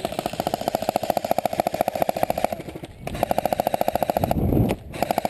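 Airsoft electric rifle firing on full auto in long bursts: a rapid, even clatter with a motor-and-gearbox whine under it. There is a short pause about three seconds in and a brief low rumble near the end before a last short burst.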